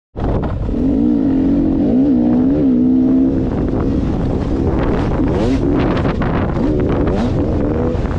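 2016 Beta 300RR two-stroke dirt bike engine under throttle while riding, its note rising and falling several times as the revs change. After about three seconds the note turns rougher and more broken.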